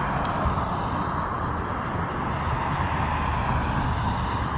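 Steady outdoor background noise: a low rumble with an even hiss, no bells yet.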